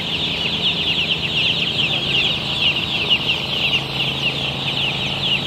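A flock of young poultry chicks peeping continuously, many short high falling chirps overlapping, with a low steady hum underneath.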